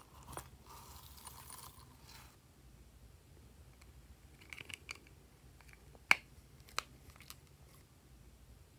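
Small zippered pouch and hard plastic cases being handled: a short zipper-like rasp lasting about a second and a half near the start, then light scattered clicks and a sharp snap about six seconds in, with a softer click a little after it.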